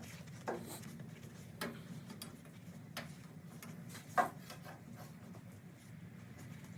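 A few faint, scattered knocks and clicks, the loudest about four seconds in, over a low steady hum.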